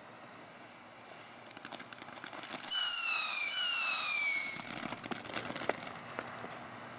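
Consumer ground fountain firework: crackling sparks build up, then two loud whistles falling in pitch, each about a second long, start nearly three seconds in, followed by scattered crackling.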